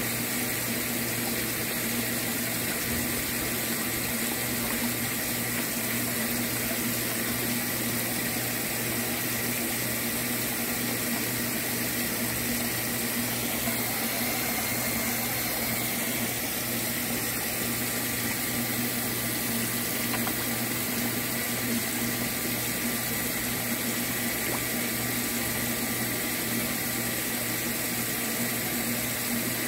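Water splashing and churning steadily in a tilapia tank, stirred by the circulation and aeration, with a steady low hum running under it.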